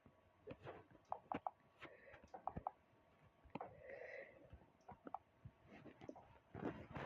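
Faint, scattered short clicks and small noises, with one brief soft breathy sound about four seconds in.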